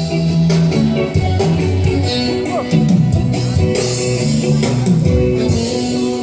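Live band playing a reggae song over loud speakers: guitar, bass and drum kit, with steady bass notes and a regular beat.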